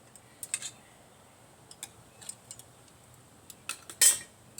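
Metal tongs clinking and tapping against hot scrap metal and its container: a few scattered light clinks, with the loudest, ringing clink about four seconds in.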